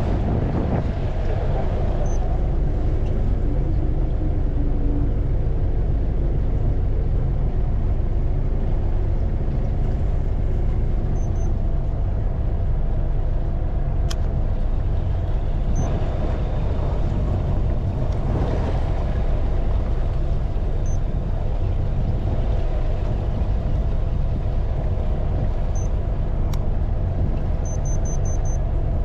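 Fishing boat's engine running steadily: a low, even drone that holds the same pitch throughout.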